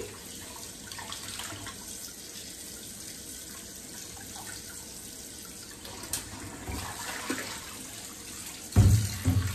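Kitchen faucet running onto a salmon fillet being rinsed by hand in a stainless steel sink: a steady splashing hiss of water. Near the end, a couple of loud low thumps.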